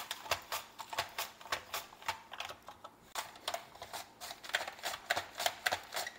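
An apple being pushed back and forth across the stainless steel blade of a Fullstar mandoline slicer, a quick, even run of slicing strokes about four a second. There is a brief lull about two and a half seconds in.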